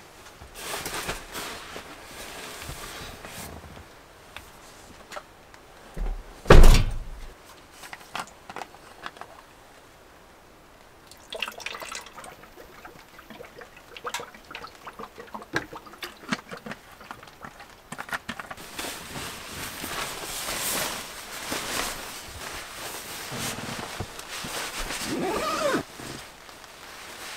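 Handling sounds inside a vehicle's small load area: a heavy thump about six seconds in, water poured from a bottle midway, then a long rustle of a down sleeping bag as someone climbs into it.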